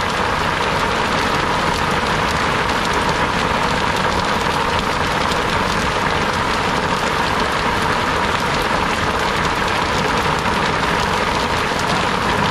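An engine running steadily under a constant rushing noise.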